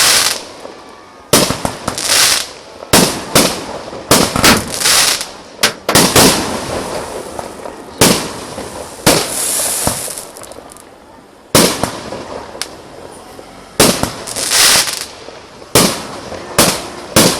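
Aerial fireworks bursting overhead: a string of loud, sharp bangs at irregular intervals, some in quick pairs, several trailing off into a crackling hiss.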